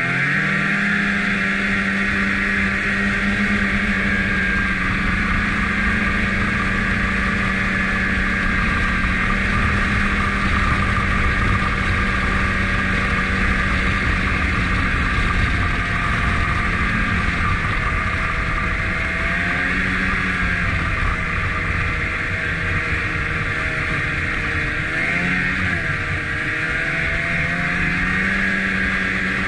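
Snowmobile engine running under way: it revs up at the start, holds a steady pitch, then drops and picks up again a few times in the second half as the throttle is eased and reapplied.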